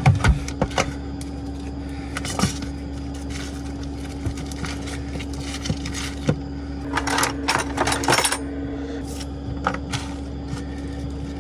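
Kitchen-work clatter: scattered light clicks, knocks and clinks of food prep and utensils, busiest about seven to eight seconds in, over a steady low hum.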